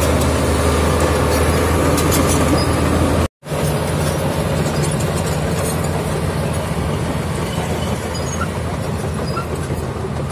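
Komatsu D85 bulldozer's diesel engine running steadily, with scattered squeaks and clicks from its steel tracks. The sound cuts out for a split second about a third of the way in, then resumes at a slightly different engine pitch.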